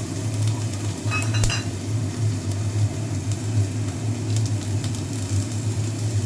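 Chopped onion frying in a little oil in a kadai, a steady sizzle over a low hum, with a metal spoon clinking against the pan about a second in and again a few seconds later.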